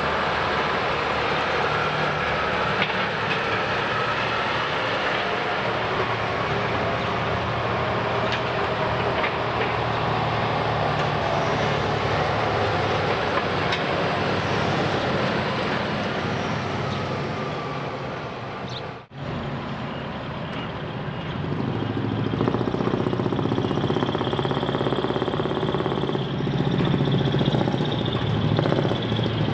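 Heavy truck diesel engines running as trucks pull in, with a sudden brief drop-out about 19 seconds in, after which the engine sound picks up louder again and a steady high tone is added in the last few seconds.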